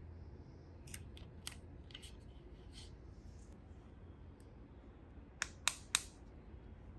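Scattered light clicks and taps from handling small toy parts or packaging, then three sharp snips or snaps in quick succession near the end.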